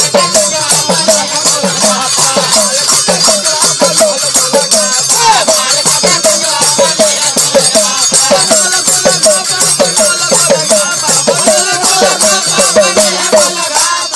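Bhojpuri huruka folk music: a huruka hourglass drum and small hand cymbals play a fast, dense beat, with a wavering melodic line over it.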